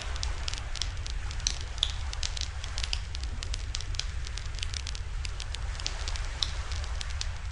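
Wood campfire crackling, with many quick irregular snaps and pops over a steady low rumble.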